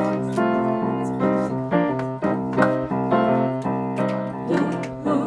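Piano playing a slow run of chords and single notes, each struck and left to ring into the next.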